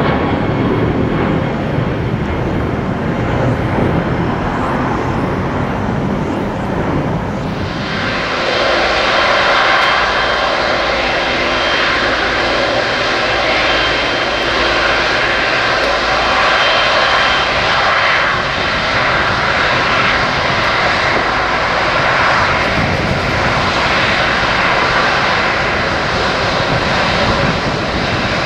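Boeing 777 jet engines. First comes a low, distant rumble from a 777 in the air. About eight seconds in it changes abruptly to a much closer, steady jet whine with several high tones from 777s on the ground by the runway.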